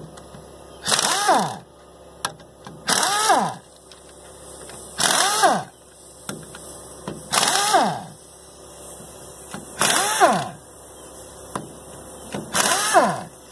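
A power tool run in six short bursts about every two seconds, each dropping in pitch as it loads up, working on the bolts of an engine's oil pump.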